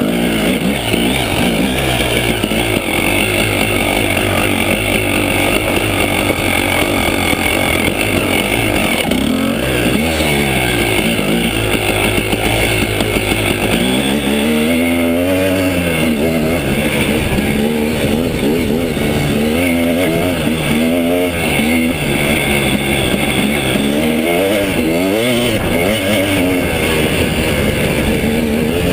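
A 2009 KTM 300 EXC Sixdays two-stroke single-cylinder enduro engine being ridden hard, its revs rising and falling again and again as the throttle is worked, with the sharpest rises about a third of the way in, around halfway, and twice more later on.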